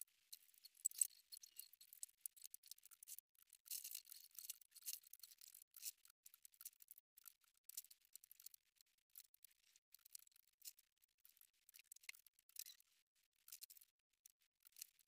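Faint, crisp rustling and crackling of tinsel garland and artificial Christmas tree branches being handled, in quick irregular crackles with nothing deep in the sound.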